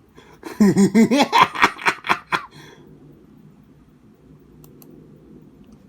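A silly vocal sound effect: a quick run of about ten bouncing, warbling pitch swoops that climb higher over about two seconds, then stop.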